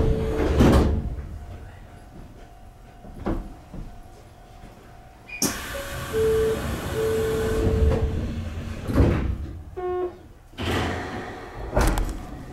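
Electric commuter train at a station stop, its sliding passenger doors working: rushing air and door noise with thumps. It also gives two held electronic tones and a short run of stepped chime notes in the second half.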